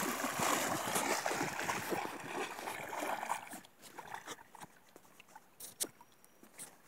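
Rustling and rubbing noise from a phone being handled, its microphone brushed and covered, for about three and a half seconds; then quieter, with a few faint clicks.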